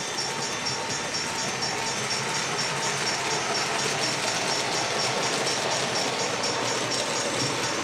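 Model railroad train, led by three Union Pacific diesel locomotives hauling tank cars, running past close by with a steady running noise. A rapid high ticking repeats about four times a second throughout.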